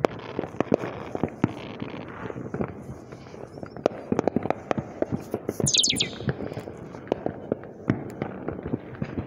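Fireworks going off: many sharp, irregular pops and bangs, some in quick clusters, with a brief falling whistle about six seconds in.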